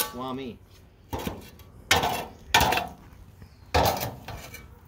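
A metal shovel scraping across concrete and knocking against a metal trash can as ash is cleared from around its base, in about four separate scrapes.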